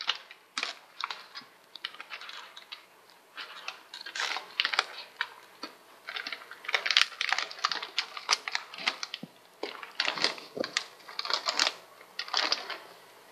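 Snack packages being handled and rummaged through on wire pantry shelves: an irregular run of short rustles and clicks.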